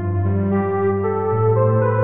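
u-he Hive 2 software synthesizer playing its 'AZ Peaceful' preset: a soft ambient pad of layered, sustained notes, with new notes coming in every half second or so.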